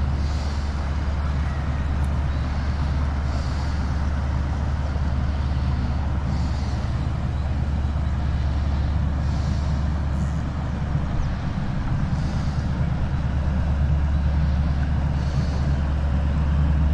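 Steady low engine drone, unbroken throughout, with a faint high sound repeating about every three seconds.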